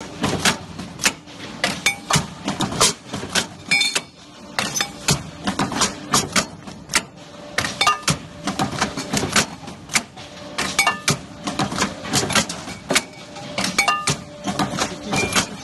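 Metal-working machine holding a steel tube in its chuck, making irregular metallic clicks and knocks, a few a second, over a faint machine hum.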